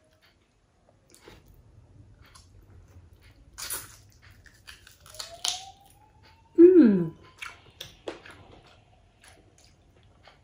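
Close-up eating sounds: a goat bone being gnawed and sucked, with small wet chewing clicks and two hissing sucks about four and five and a half seconds in. Near seven seconds comes the loudest sound, a short hum of the voice falling in pitch.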